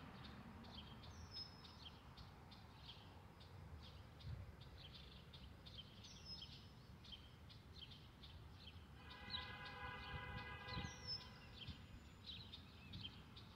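Faint birdsong with short chirps and a falling whistle that repeats about every five seconds, over a low outdoor rumble. A little past the middle, a distant train horn sounds once for about two seconds as the Metra commuter train approaches from far off.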